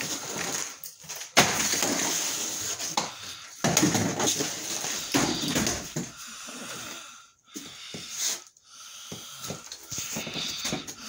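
Footsteps and rustling of someone walking through a cluttered room, with heavy breathing and a few sudden knocks.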